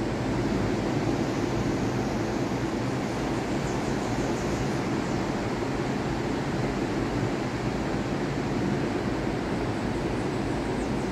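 Steady seaside ambience: an even roar of surf and wind, with no distinct events.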